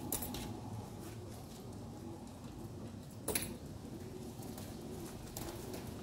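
Young racing pigeons cooing steadily in the loft, with a few sharp clacks, the loudest about three seconds in.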